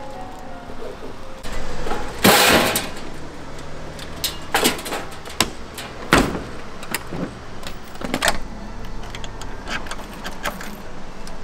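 Clanks, knocks and a scraping rattle from a food truck's metal hinged side panels and latches being worked by hand.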